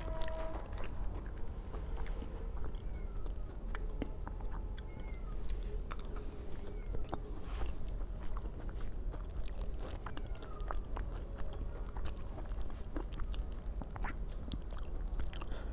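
Close-up chewing and mouth sounds of a person eating aloo tikki with sweet curd: scattered small wet clicks and bites over a steady low hum.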